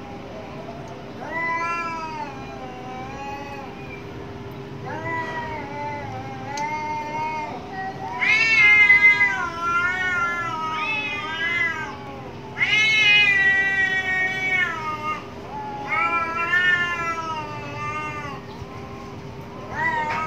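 Two domestic cats yowling at each other in an aggressive standoff: a series of long, wavering yowls, each one to three seconds, rising and falling in pitch. The loudest come about eight and thirteen seconds in, over a faint steady hum.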